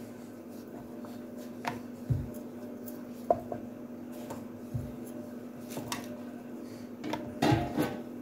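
Wooden rolling pin on a wooden board as dough is rolled out: scattered knocks and clicks, with a louder cluster of clatter near the end, over a steady low hum.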